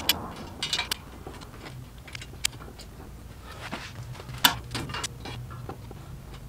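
Scattered light metallic clicks and taps of a hand tool and bolts on a bicycle's rear axle as a rear rack strut is fitted, the sharpest about four and a half seconds in, over a low steady hum.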